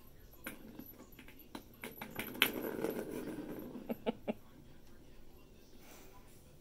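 A kitten pawing and scratching at the cardboard scratch pad of a plastic ball-track cat toy, with rustling and a quick run of sharp clicks and taps in the middle, a few separate clicks following.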